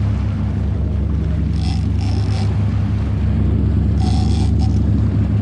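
Yacht's engine running with a steady low hum. Two brief high-pitched sounds come in about two seconds in and again about four seconds in.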